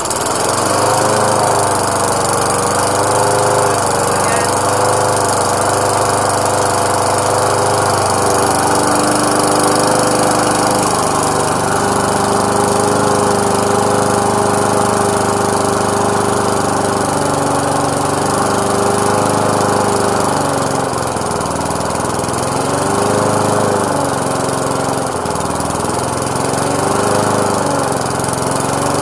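Briggs & Stratton 3.5 hp single-cylinder four-stroke lawnmower engine running just after a cold start, its speed dropping about a third of the way in and then rising and falling repeatedly in the second half.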